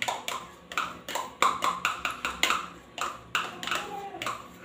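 A metal spoon scraping and tapping inside a plastic measuring cup, knocking out the last of the melted margarine into a plastic bowl: a string of short, sharp taps at an uneven pace, roughly two to three a second.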